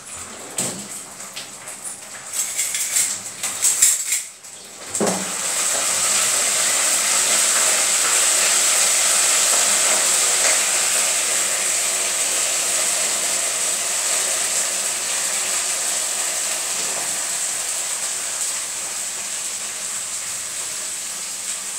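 A few knocks and utensil clatter. Then, about five seconds in, cauliflower florets hit hot oil with tempering spices and ginger-garlic paste in a kadai and sizzle loudly, the sizzle easing off slowly.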